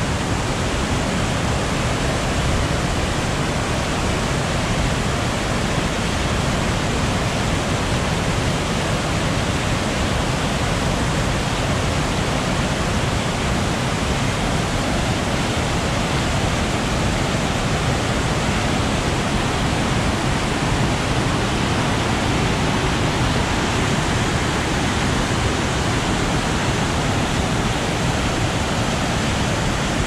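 Loud, steady rush of a waterfall and the white water of a stream in spate tumbling over rocks close by.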